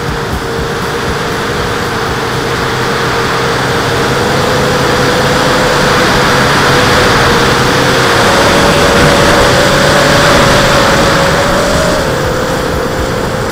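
Mini quadcopter's electric motors and three-blade propellers humming steadily, recorded on the onboard camera amid heavy wind rush. The hum rises in pitch and gets louder about eight seconds in, then drops back near the end.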